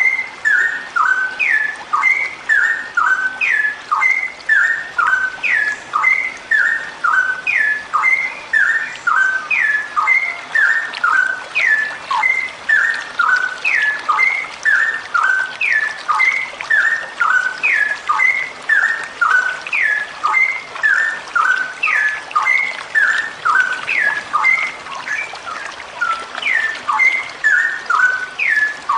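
Female straw-headed bulbul (cucak rowo) calling in a long unbroken 'ropel' string. It is a short whistled phrase of notes stepping and sliding down in pitch, repeated about three times every two seconds.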